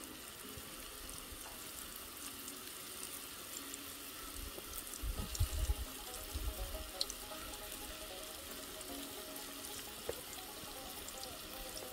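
Fish frying in hot oil: a steady sizzle with scattered small pops, and a few low thumps about halfway through.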